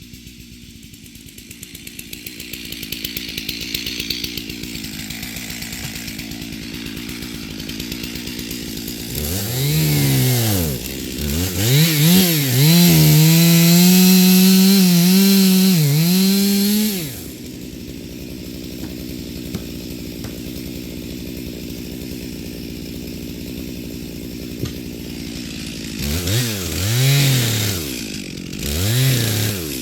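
Two-stroke chainsaw idling, blipped up and down a few times, then held at full throttle for about five seconds while cutting wood, its pitch sagging slightly under load before dropping back to idle; near the end it is revved in short blips again.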